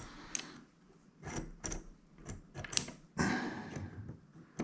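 Small metallic clicks and scraping of a dimple lock pick being worked back out of a dimple lock cylinder, with a longer scrape a little after three seconds in.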